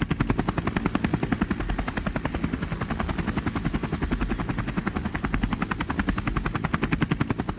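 Propeller aircraft engine sound effect: a steady, rapid throbbing chop of many beats a second, with a faint thin high whine above it.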